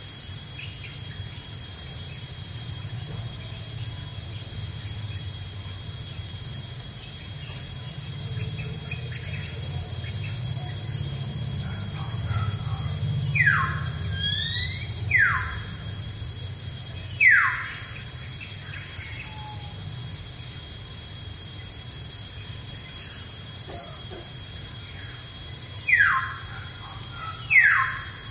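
Steady insect chorus, crickets chirring without pause, with a bird giving short downward-sliding calls: three about halfway through and two near the end.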